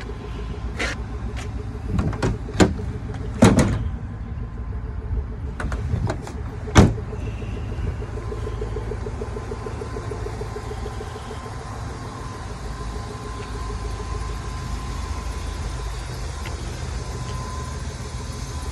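Several sharp knocks and thumps over the first seven seconds, with a door among them, over a steady low rumble that carries on throughout.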